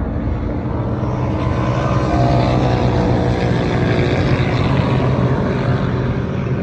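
A pack of F900R Cup race motorcycles (BMW F 900 R parallel-twins) passing at racing speed, several engines running hard at once. The sound swells to a peak in the middle and starts to fade near the end.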